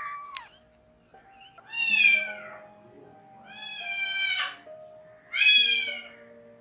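A domestic cat meowing: a short call at the start, then three long, loud meows about a second apart, each dropping in pitch at its end.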